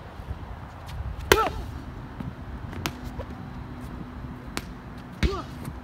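An oversized tennis ball being kicked on a hard court: a few sharp knocks, the loudest about a second and a half in, over a steady low rumble. A short shout comes with the loudest knock, and another comes near the end.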